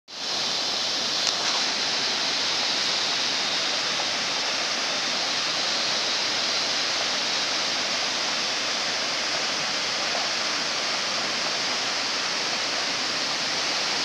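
Mountain river rushing over boulders in whitewater rapids: a steady, even rushing noise. A single brief click about a second in.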